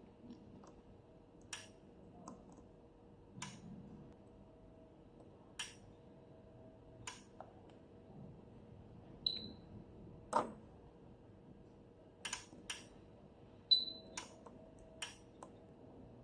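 Scattered sharp clicks, about a dozen, as the HDM3065 benchtop multimeter's keys are pressed and its probes handled, and two short high beeps from the meter, about four seconds apart; the meter beeps when it records a stable probe reading.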